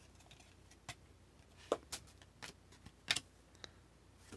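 Trading cards being flipped through in the hand: a handful of short, faint clicks and snaps as the cards slide off one another.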